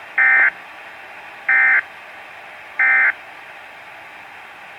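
Three short, loud bursts of Weatheradio Canada's SAME digital data tones, about a second and a half apart, each a buzzy electronic chirp lasting about a third of a second. The bursts are short enough to be the three repeats of the end-of-message code that closes the alert sequence, over a steady radio hiss.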